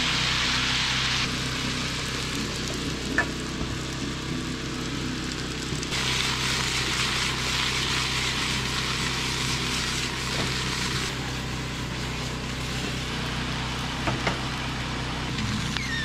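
Fried rice with vegetables sizzling as it fries in a pan, the hiss steady apart from a few sudden shifts in level, over a steady low hum.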